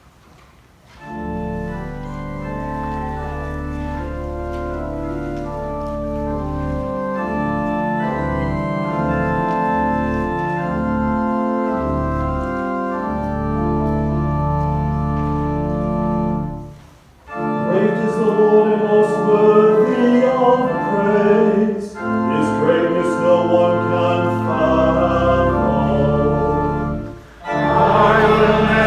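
Church organ playing sustained chords over a low bass. After a brief break about 17 seconds in, voices sing along with the organ in phrases separated by short pauses.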